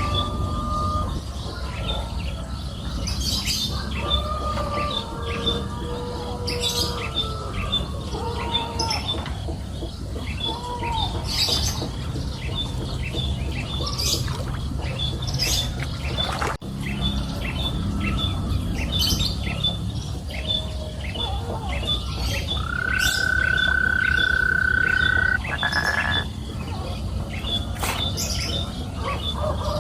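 Birds chirping and calling in short gliding notes, over a regular high ticking about two or three times a second and a low steady rumble. About two-thirds of the way through, one long steady whistled note holds for a couple of seconds.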